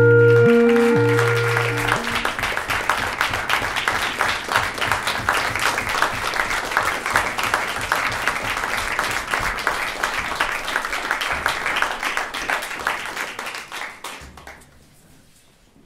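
A clarinet ensemble's final held chord, which ends about two seconds in, overlapped by audience applause. The applause starts almost at once, carries on steadily and dies away near the end.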